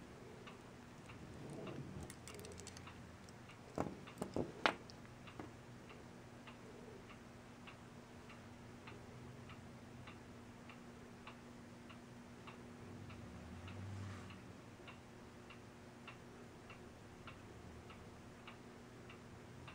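A clock ticking faintly and regularly, about two ticks a second, with a few louder knocks about four seconds in.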